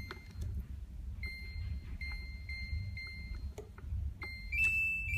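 AMPall SP-8800 syringe pump's keypad beeping as its buttons are pressed. There is a short beep at the start, a run of four short beeps from about a second in, and another short beep after four seconds, with faint button clicks. Near the end comes a longer, slightly higher beep.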